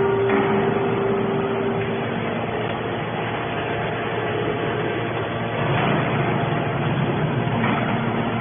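Hydraulic scrap-metal baling press running: steady machine noise, with a held hum for the first two seconds and a slight swell in level about six seconds in.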